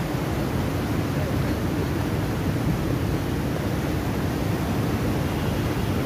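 Water rushing through a weir's sluice gates in white-water rapids: a steady, deep rushing noise with no breaks.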